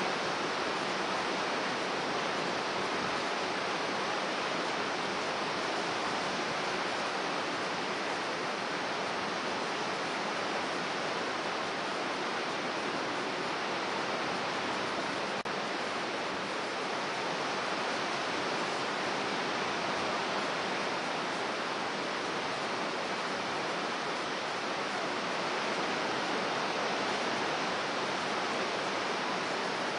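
Heavy storm surf breaking, heard as a steady, even roar.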